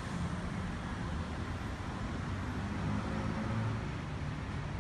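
Steady low rumble of city street traffic, with no single vehicle standing out.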